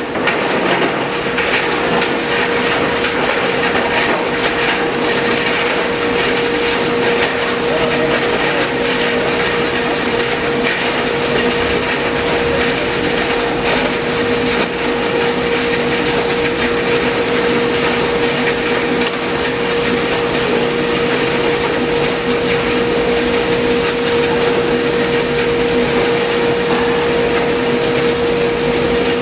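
Pagani 2550 plastic granulator running under load: a steady mechanical hum with a clear mid-pitched tone, over irregular clattering of polyethylene lumps being chopped and ground.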